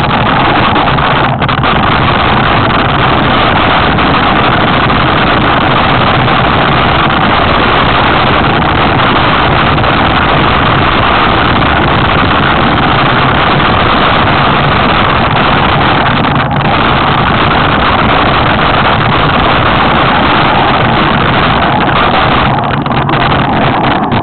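Loud, steady wind buffeting on the microphone over the rumble of a mountain bike on a fast downhill descent, without a break.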